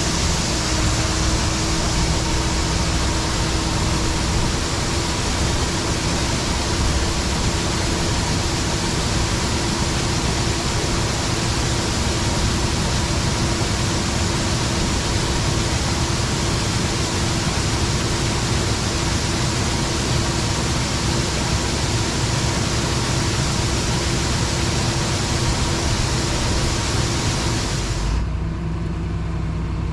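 Harvest machinery running: a steady loud rushing noise over a low engine rumble with a couple of steady tones. About 28 s in the rush stops abruptly, leaving a deeper engine sound.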